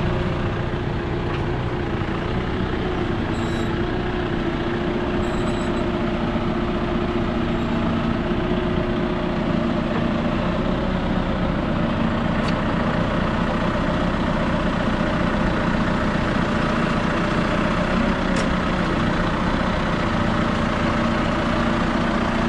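John Deere loader tractor's diesel engine running steadily while the front loader works a shear grab into the silage face, with a few faint ticks over it.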